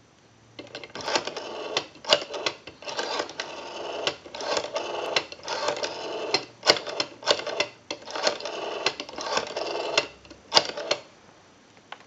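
Western Electric 500 rotary telephone dial being dialed digit after digit to place a call: each stroke is a wind-up of the finger wheel and a whirring return with a run of sharp clicks, repeated several times with short pauses between digits.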